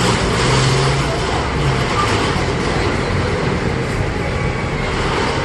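Steady road traffic noise, with a vehicle engine's low hum strongest in the first two seconds.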